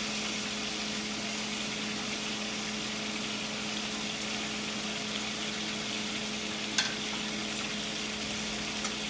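Fish fillets frying in oil and melting butter in a skillet on a gas burner: a steady sizzle, with a wooden spoon stirring through it. A steady low hum runs underneath, and there is a single sharp click about seven seconds in.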